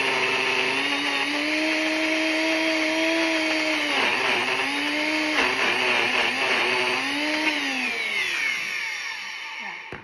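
Small blender motor running at full speed, blending avocado, aloe juice and mint essential oil into a smooth mix. Its pitch dips and recovers twice near the middle as the load changes, then it winds down with a falling whine and stops near the end.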